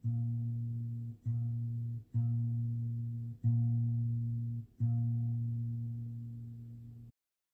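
Background music: a low plucked guitar note struck five times at uneven intervals, each note ringing and fading. The music cuts off suddenly about seven seconds in.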